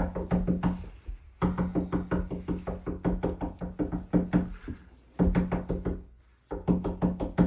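Instrumental music: a quick run of sharp, even percussive notes over a steady low tone, breaking off briefly twice.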